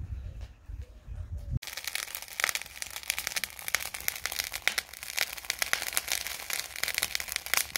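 Lump charcoal burning in a chimney starter, crackling in a dense run of sharp snaps and pops. It is preceded by about a second and a half of low rumble that cuts off abruptly.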